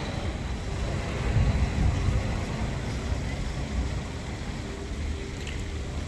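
Low, steady rumble of wind buffeting the microphone outdoors.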